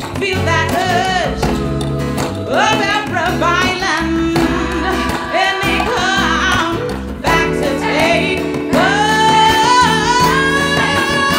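A song performed live: a woman singing melodic runs over instrumental accompaniment, moving into a long held note near the end.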